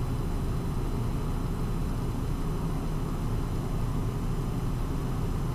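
Steady low rush of cockpit noise in a Cessna Citation CJ4 jet in flight: airflow over the fuselage and the hum of its turbofan engines, unchanging throughout.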